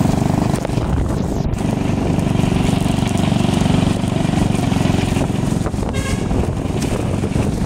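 Motorbike engine running while riding along a street, with road and wind noise on the microphone. A brief horn toot comes about six seconds in.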